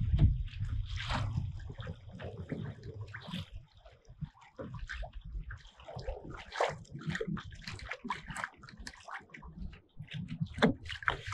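Small waves lapping and splashing against a kayak's hull in irregular short splashes.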